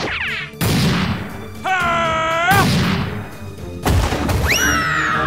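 Added cartoon explosion sound effects: three sudden booms about a second or more apart, with pitched whistling effect tones between them, the last one falling and then holding.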